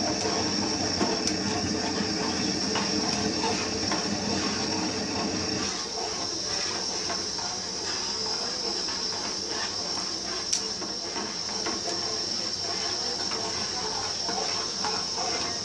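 A metal spoon scraping and tapping against an aluminium pot as a thin ragi batter is stirred, making many small scrapes and clicks over a steady hiss. A lower background noise drops away about six seconds in.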